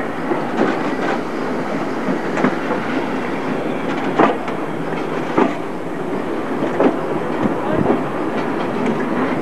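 Railway coach running along the track, heard from an open carriage window: a steady rumble of the wheels with irregular clicks and knocks from the rail joints.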